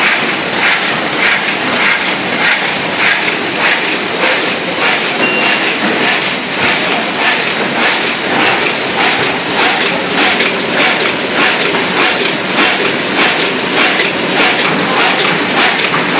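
Brausse automatic flatbed die-cutting machine running, feeding printed sheets and cutting them in a steady, rapid clatter of about two to three strokes a second.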